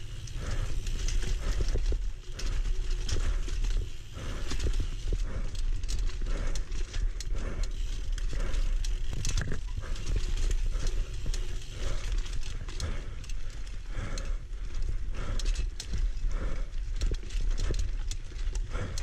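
Single-speed mountain bike ridden along a dirt singletrack trail: wind rumbling on the microphone, with a steady run of clicks and knocks from the bike rattling over bumps and roots.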